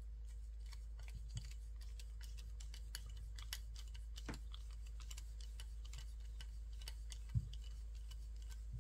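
Irregular small clicks and ticks of steel screws being driven by hand with a screwdriver into a carbon-fibre drone frame, with one louder knock about seven seconds in, over a steady low hum.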